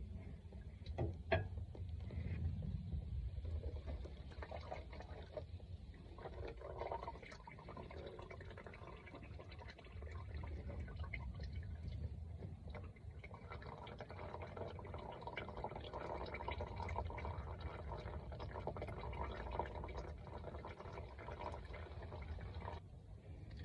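Engine oil pouring in a steady stream during a Suzuki Jimny JB23W oil change, stopping abruptly near the end. There is a sharp knock about a second in.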